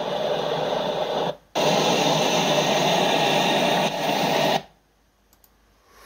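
Steady rushing noise from a shoreline video playing through computer speakers, with no voice. It drops out for a moment about a second in, comes back louder, and cuts off suddenly about four and a half seconds in as the clip ends.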